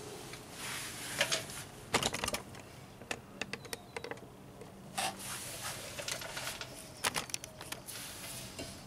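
Scattered light metallic clicks and knocks as a rear brake caliper bracket and its bolts are handled and the bracket is offered up against the rear knuckle, with bunches of clicks about two seconds in and again about seven seconds in.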